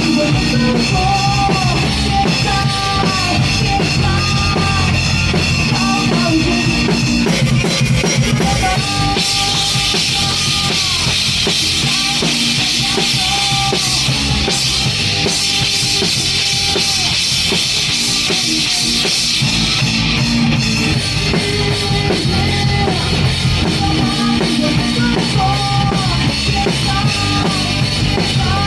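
A live rock band playing an instrumental passage: a drum kit driving steadily with bass drum and snare, under a repeating lead melody that bends up and down in pitch. The cymbals wash louder from about nine seconds in until about twenty seconds in.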